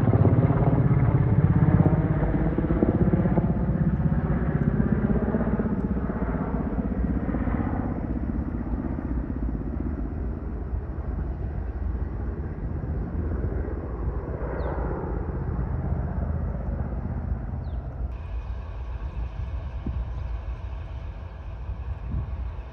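A motor vehicle's engine passing close by, its pitch falling as it goes and fading away over several seconds. A second, fainter engine passes about fourteen seconds in, over a steady low rumble.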